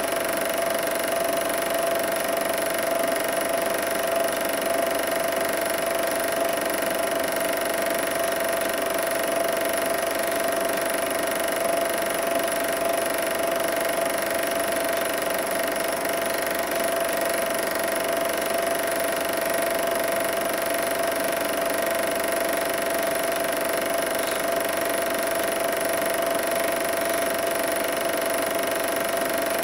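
Super 8 film projector running: a steady mechanical whirr and clatter with a constant hum.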